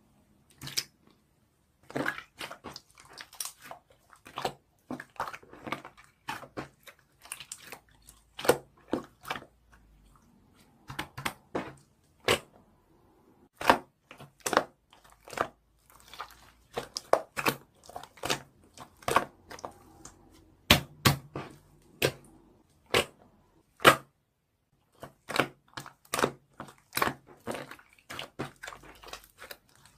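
Lavender slime being squeezed and poked by hand: an irregular string of sharp pops and clicks, several a second, with a few short pauses.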